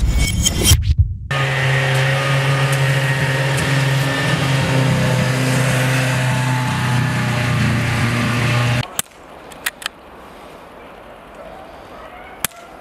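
Small snowmobile engine running at a steady speed, cutting off abruptly about nine seconds in; a few sharp clicks follow.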